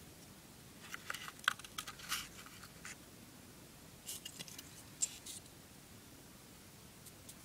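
Light handling noise: two flurries of small clicks and scratches, about a second in and again about four seconds in, over a steady hiss.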